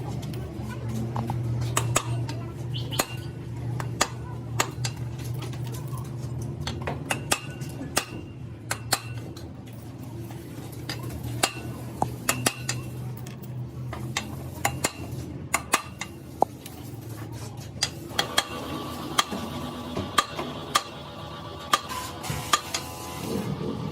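Irregular sharp metallic clinks and taps of tools and small metal parts being handled, over a steady low hum.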